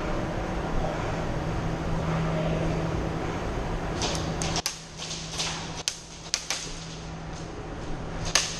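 A steady low hum, then from about halfway a string of sharp snaps, some in quick pairs, typical of airsoft guns firing.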